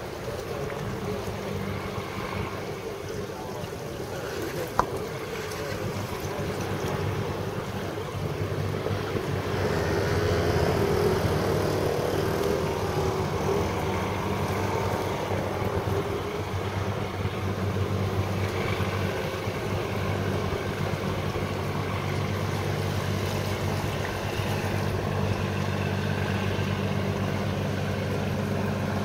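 Fishing boat's engine running with a steady low drone, getting louder about ten seconds in as the boat passes. There is a single sharp click about five seconds in.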